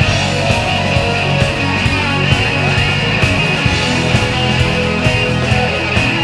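Rock band playing: electric guitar over a steady drum beat at about two beats a second, with no singing.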